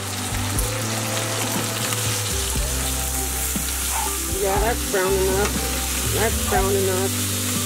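Pork chops sizzling steadily as they fry in a pan.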